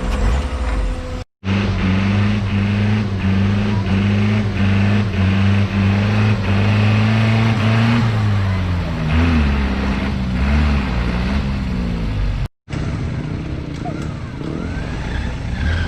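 Off-road 4x4's engine working under load, held at steady revs for several seconds, then the revs dip and waver. The sound cuts out abruptly twice.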